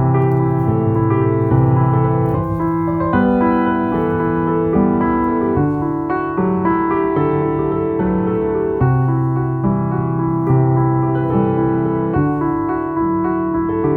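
Background piano music: slow, sustained chords changing about every second or two.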